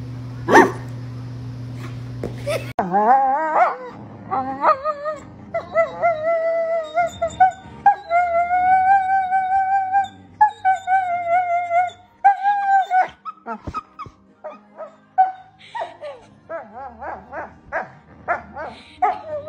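A dog barks sharply twice over a steady hum, then Doberman dogs playing: long, wavering high-pitched whines lasting a second or two each, followed about two thirds of the way in by a rapid run of short yaps.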